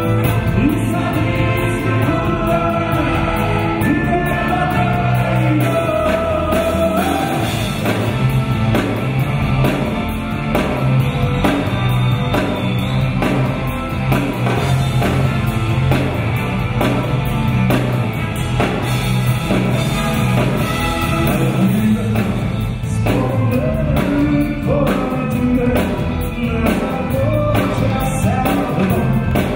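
Live rock song played by a band with electric guitars and bass guitar together with a Ukrainian folk ensemble, with lead and choir singing over a steady beat.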